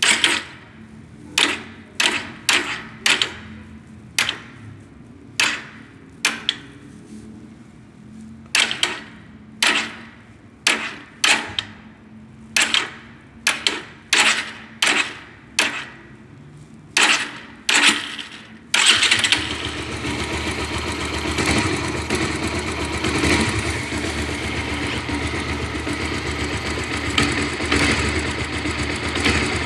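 Bajaj Pulsar 180's single-cylinder engine at low revs, a steady hum broken by a series of sharp, irregular clacks; about two-thirds of the way through it changes to a louder, steady running sound. The clacking at low revs fits the strange noise the owner is asking about.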